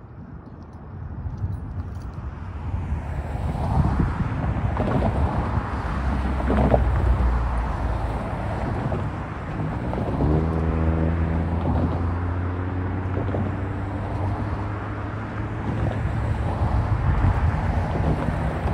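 Road traffic: cars and a pickup truck driving over a railroad crossing. Tyre and engine noise builds about a second in, and a vehicle's steady engine note stands out for a few seconds near the middle.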